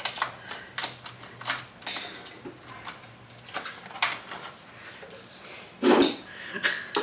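Scattered clicks, taps and rattles of hands working plastic and metal parts of a Honda Ruckus scooter, pulling a wire through a tight gap, with one louder knock about six seconds in.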